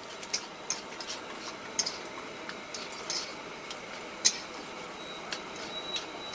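Steel spatulas scraping and clinking against a large steel wok as tapioca and beef masala are stirred and mashed together, in irregular sharp strokes over a low steady background, the loudest clink about four seconds in.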